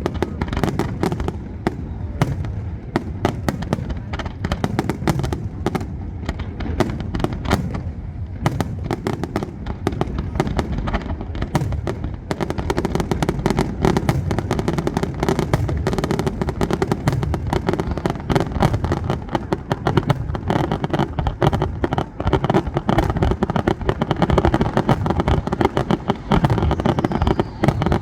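Fireworks display going off in a continuous barrage of bangs and crackling, growing denser about halfway through.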